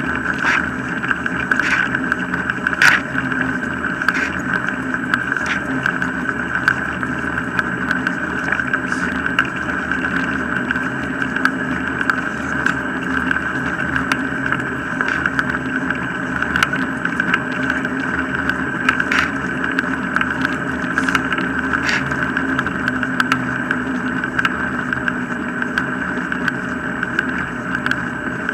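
Wheels of a dog-drawn rig rolling steadily over a tarmac path, with sharp clicks and knocks from the rig now and then.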